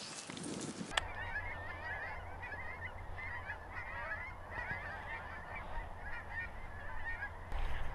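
A flock of wild waterfowl calling, many overlapping wavering calls repeated over several seconds, over a steady low rumble. The calls start about a second in and die away near the end.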